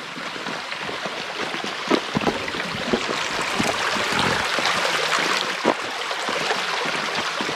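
Shallow, rocky creek babbling steadily over stones, with a few short knocks about two, three and six seconds in.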